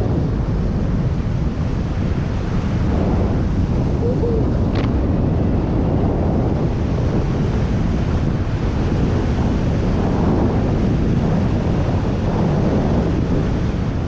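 Snowboard riding through fresh powder: a steady rush of wind on the action camera's microphone over the hiss of the board sliding through the snow.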